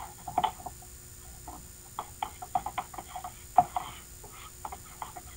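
Quick, irregular light clicks and taps, bunched about two to four seconds in, over a faint steady electrical hum.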